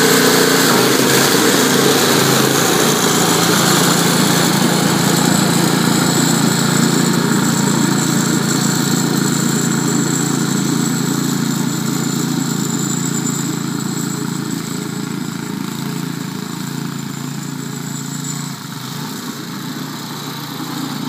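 1978 Ariens two-stage snowblower's engine running steadily while it throws snow, growing gradually fainter as the machine moves away.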